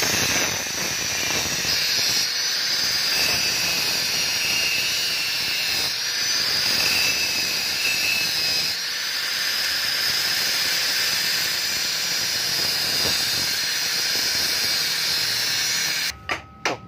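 Angle grinder with a thin cutting disc cutting through a welded stainless steel bracket on a motorcycle exhaust silencer. The disc on the metal makes a steady, high-pitched whine. It cuts off suddenly near the end, followed by a few light knocks.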